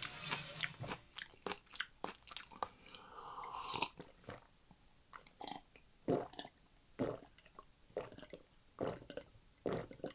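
Close-miked chewing and mouth sounds of someone eating Chapagetti noodles with green onion kimchi: irregular wet clicks and smacks, with a short longer stretch of noise about three seconds in.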